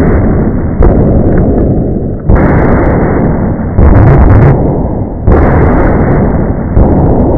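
Heavily distorted, clipped, noise-like audio sample cut into repeated segments that restart abruptly about every one and a half seconds, alternating between a muffled version and a brighter one.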